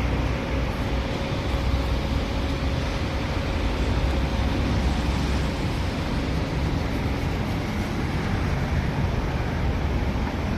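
Steady low rumbling background noise with no distinct events, with a faint steady hum through the first half.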